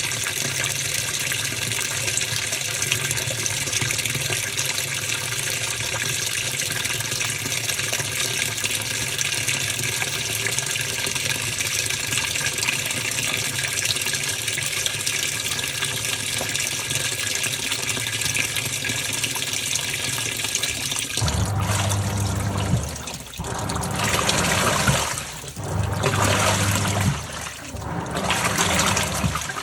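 Top-loading washing machine with water running steadily into the tub. About two-thirds of the way through, the filling gives way to the agitator: four strokes of about two seconds each, motor hum and sloshing water in each, with short pauses as it reverses direction.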